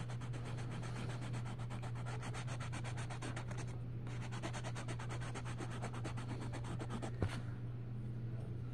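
Orange coloured pencil scratching rapidly back and forth on colouring-book paper, shading in a flower petal, over a steady low hum. A single click comes about seven seconds in.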